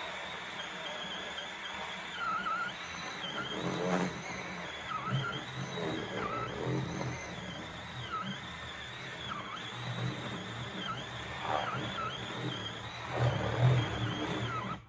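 Battery-powered Achiforce 20 V cordless chainsaw running through a log, its high motor whine dipping in pitch over and over as the chain bogs under load. The sound cuts off suddenly at the end.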